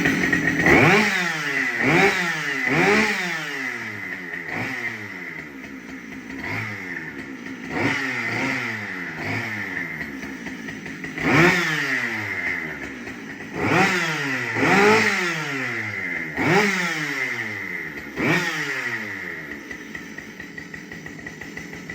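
Husqvarna 572XP two-stroke chainsaw running, the throttle blipped repeatedly: every second or two the engine revs up sharply and falls back toward idle.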